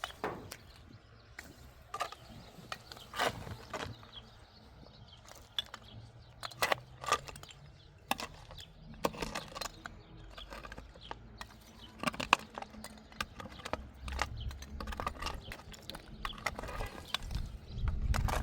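Irregular knocks and clicks at uneven spacing, with a low rumble rising near the end.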